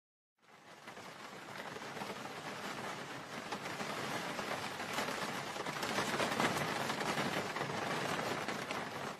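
Steady rain falling, fading in about half a second in and growing louder toward the middle.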